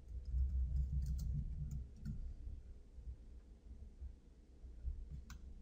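A few faint clicks from typing on a computer keyboard and a mouse click near the end, over a low steady hum.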